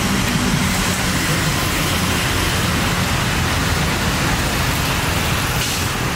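Steady road traffic noise: a continuous haze of passing vehicles.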